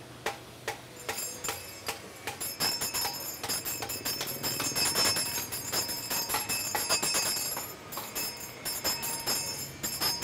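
Sharp metallic taps and clinks of sheet tin being worked, joined about two seconds in by a hand bell shaken over and over in a continuous jingling ring, the bell a peanut vendor rings to announce her wares. Background music runs underneath.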